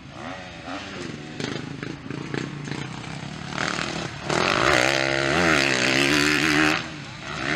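Motocross dirt bike engines revving on the track. About four seconds in, one bike passes close and is much louder for a couple of seconds, its engine pitch rising and falling with the throttle, then it fades.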